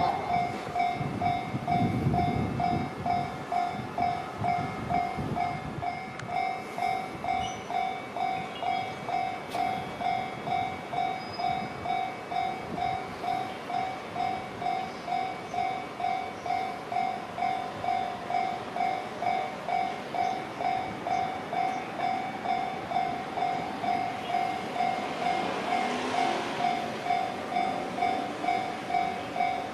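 Japanese railway level crossing alarm ringing on and on, a single clanging electronic tone about one and a half times a second. A train's low rumble is heard under it in the first few seconds, and a passing noise swells and fades near the end.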